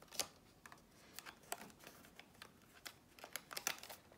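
Faint, scattered crinkles and clicks of a clear acetate box wrapped in glued paper being turned and pressed between the fingers, as the paper band is pressed down to check that the glue holds.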